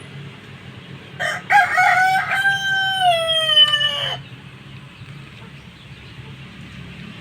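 A rooster crowing once, about a second in, a call of some three seconds whose pitch drops toward the end, over a steady low hum.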